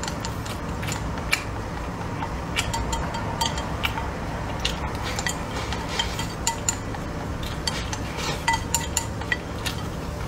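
Wooden chopsticks clicking and scraping against a ceramic rice bowl in quick, irregular taps as the last fried rice is swept into the mouth.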